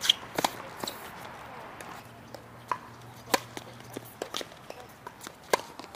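Tennis balls being struck and bouncing: a string of sharp pops at irregular intervals, loudest once right at the start and twice more later, with fainter taps in between.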